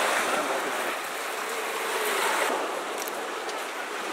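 Hot cooking water pouring in a splashing stream from a large tilted aluminium pot as cooked rice is drained, swelling again about two seconds in. A few faint clicks come near the three-second mark.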